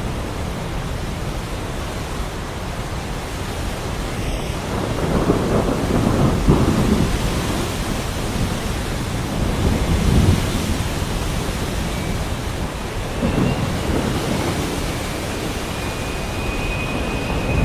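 Heavy rain falling steadily, with thunder rolling low underneath in slow swells that rise and fade several times.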